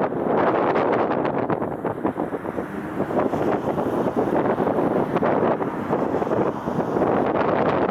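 Strong, gusty wind buffeting the microphone, a rough fluttering rumble that rises and falls unevenly.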